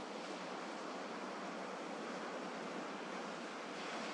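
Gentle sea waves washing on a shore, a steady soft rush with slight swells.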